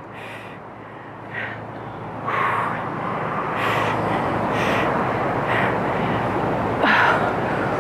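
A woman breathing hard through banded squats, with a short forceful breath about once a second. Under it a rushing noise swells about two seconds in and stays.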